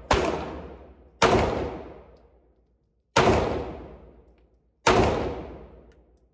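Four shots from an FN FNS-9C compact 9mm pistol, fired at an uneven pace one to two seconds apart, with a fifth shot right at the end. Each report rings out in a long echoing decay off the walls of the indoor range.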